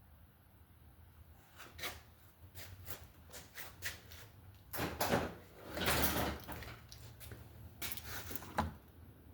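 Handling noises: a string of sharp clicks and knocks, with two louder scraping rustles about five and six seconds in.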